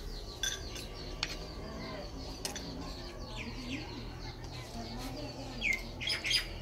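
Small birds chirping and calling, with quick sweeping notes and a couple of louder calls near the end, over a steady low background hum and a few sharp clicks.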